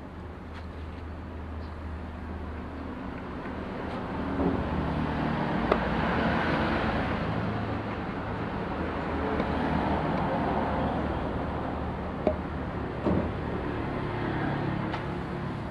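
Yamaha 15 hp outboard motor running, its speed rising and falling, with a few sharp knocks.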